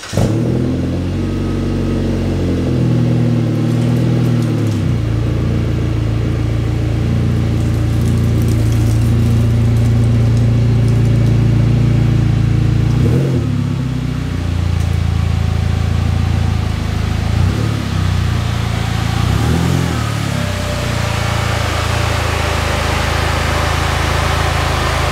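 Turbocharged Mitsubishi Lancer's four-cylinder engine running steadily as the car is driven a short way, its pitch shifting up and down a few times.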